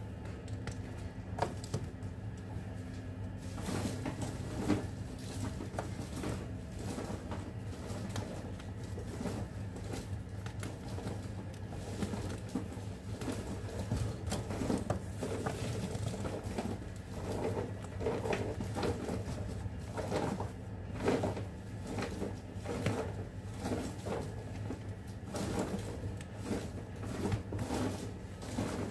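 Foil-wrapped chocolates rustling and clicking lightly as they are picked up and set in place on a tray, many small irregular taps and crinkles, over a steady low hum.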